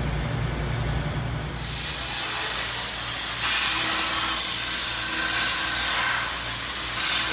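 ESAB Crossbow portable CNC plasma cutter cutting steel plate: after a low hum, the plasma arc's steady hiss starts about a second and a half in and grows stronger about three and a half seconds in.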